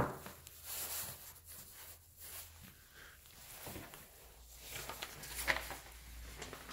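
Faint scattered taps and clicks, with one sharp click right at the start: footsteps on a hardwood floor and the handling of a hand-held camera, over a faint low room hum.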